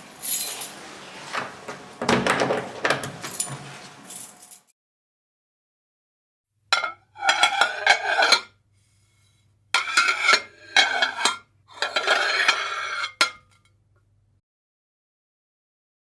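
Dishes and cutlery clinking and clattering in several bursts, with silent gaps between. A low steady hum runs under the later bursts.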